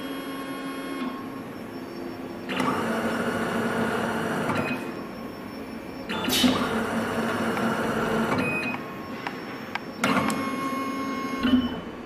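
Coaxial cable stripping machine running its stripping cycles: a motor whirring with a steady hum for a couple of seconds at a time, starting and stopping about four times. There is a sharp click partway through.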